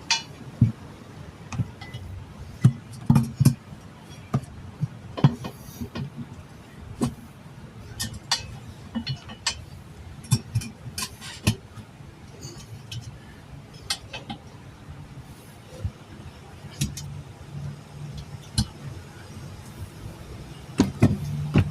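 Irregular metal clinks and knocks of hand tools and the wheel as the tire's bead is worked back onto the rim, over a steady low hum.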